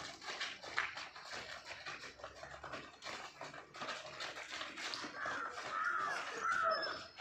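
Footsteps and shoe scuffs of a group of children moving quickly along concrete stadium steps. About five seconds in, a wavering high-pitched cry rises over them for about two seconds.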